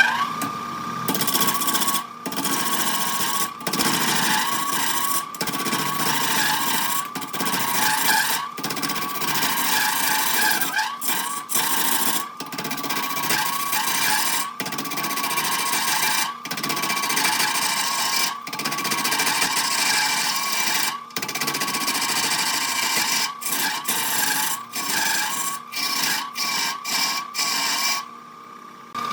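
Wood lathe running, its motor whine rising to a steady pitch at the start, while a turning tool cuts into the spinning wood in repeated passes with short breaks every second or two. The cutting stops just before the end, leaving the motor whine.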